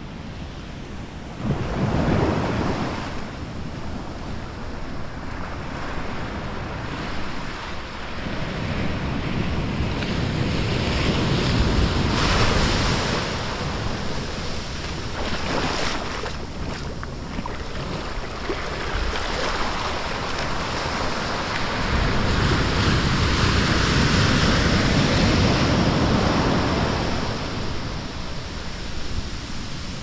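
Small Pacific Ocean surf breaking and washing up the sand, a continuous wash that swells and ebbs. Wind buffets the microphone with a low rumble, strongest near the start and again in the last third.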